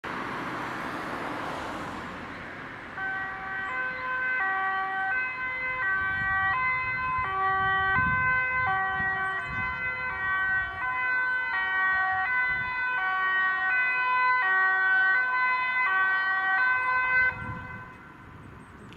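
Two-tone emergency siren (German Martinshorn) of an intensive-care ambulance on an emergency run, switching back and forth between a high and a low tone a little under once a second. Traffic noise is heard before the siren starts about three seconds in, and the siren cuts off suddenly near the end.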